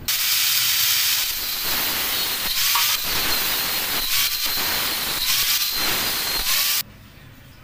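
Handheld angle grinder running with a steady high whine as its disc cuts through a protruding steel anchor bolt, throwing sparks; the cutting noise swells in repeated surges and stops suddenly near the end when the grinder is switched off.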